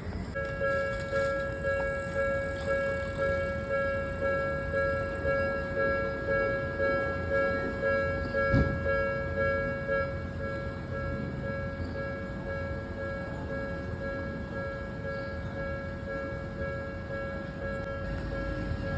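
Japanese level-crossing warning alarm on the Odakyu Odawara Line starting up about half a second in, its electronic 'kan-kan' bell repeating about one and a half times a second. A low rumble runs underneath, with a single knock about halfway through.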